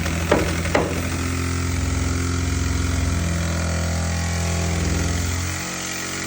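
A machine's engine running steadily at a construction site, its hum dropping lower and quieter about five and a half seconds in. Two sharp knocks, about half a second apart, come near the start.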